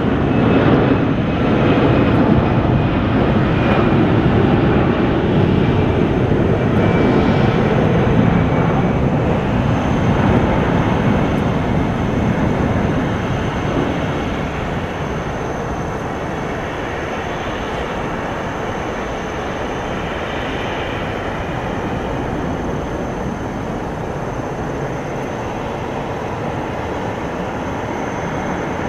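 Airbus A320-214's two CFM56-5B turbofan engines at takeoff thrust: a loud, steady jet roar during the takeoff roll, easing off from about a dozen seconds in as the airliner lifts off and climbs away.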